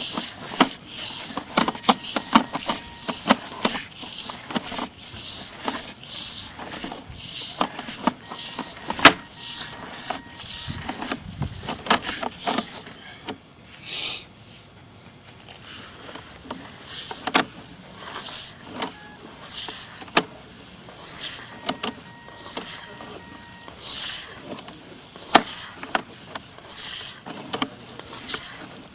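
Sewer inspection camera and its push cable being fed through PVC sewer pipe: irregular scraping, clicking and rattling, with one sharp knock about nine seconds in and a quieter spell in the middle.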